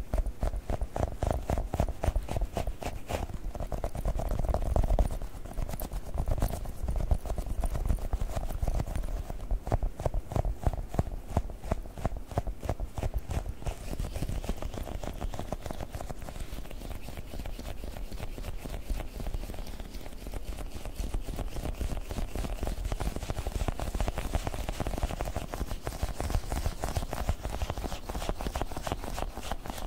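Fast, continuous fingernail tapping on Globbles, squishy gel toy balls.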